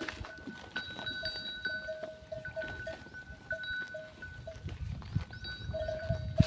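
Dairy livestock with bells ringing over and over at the same few fixed pitches, each ring short, over a low rumble and scattered clicks.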